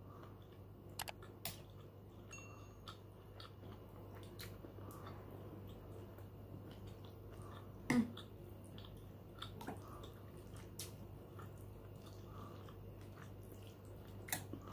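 Quiet chewing of beef soto with rice, broken by a few sharp clinks of a metal spoon against a ceramic bowl; the loudest clink comes about halfway through. A low steady hum runs underneath.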